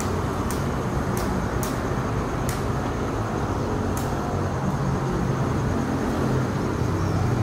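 CC 206 diesel-electric locomotive approaching from a distance, its engine a steady low drone with general outdoor noise. A few sharp clicks come in the first half.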